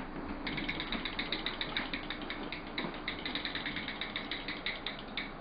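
A small mechanism clicking rapidly and evenly, about eight clicks a second, over a faint steady hum.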